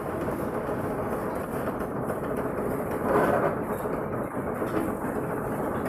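Steady mechanical running noise from an automatic dual-head soldering machine and the factory around it, swelling briefly about three seconds in.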